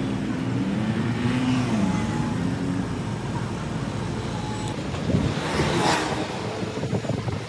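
City street traffic: motor vehicles and scooters passing, with an engine note rising and falling in the first few seconds and another vehicle passing louder about five seconds in.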